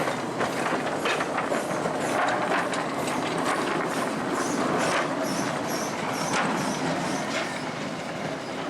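Miniature railway train running past, its wheels clicking over the rail joints.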